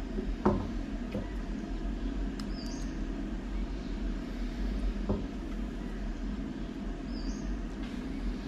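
Steady low background rumble, with a few light knocks of a serving utensil, the clearest about half a second in and another about five seconds in.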